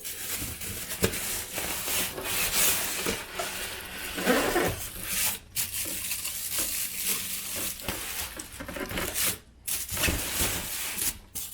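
Rustling and crinkling of packaging being handled, with scattered light knocks and scrapes.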